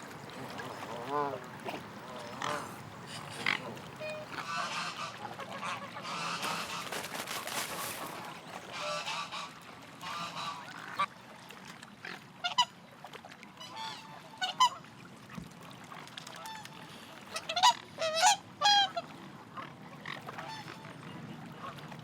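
Swans calling: short, scattered honking calls, several in quick succession near the end, over a stretch of hiss in the first half.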